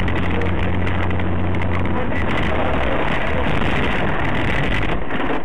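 Car engine and road noise heard inside the cabin through a dashcam microphone: a steady low engine hum for the first half that then turns rougher and uneven.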